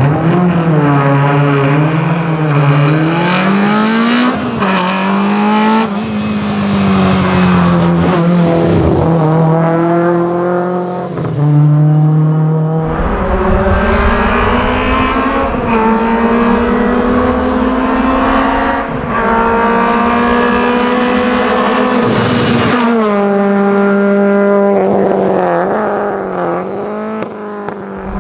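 Racing car engines at full throttle on a hill climb, revving up and dropping back at each gear change, the sound changing abruptly a few times as one recording gives way to another.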